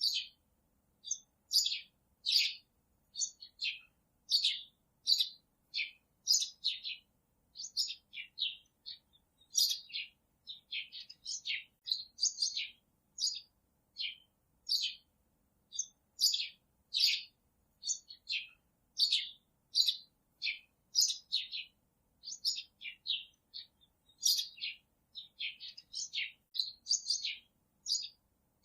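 Birds chirping: a continuous run of short, high chirps, about two or three a second, with silence between them.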